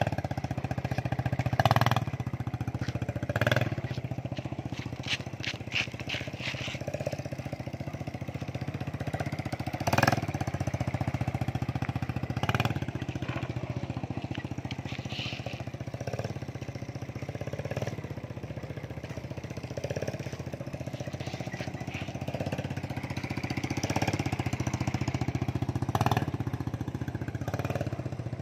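Small motorcycle engine running steadily at low speed while towing a loaded-frame wooden cart, with a few sharp knocks and rattles scattered through and a quick run of clicks a few seconds in.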